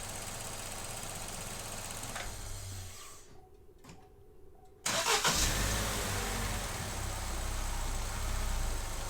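Vauxhall Corsa E's 1.4 Ecotec petrol engine idling, switched off about three seconds in, then cranked and restarted just under five seconds in and running on. The engine has a lean-running fault (P0171 fuel system lean, with P0300 misfire codes).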